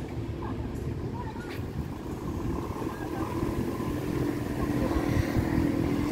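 Street traffic with a steady low rumble. A passing vehicle's engine hum builds over the second half, getting louder near the end.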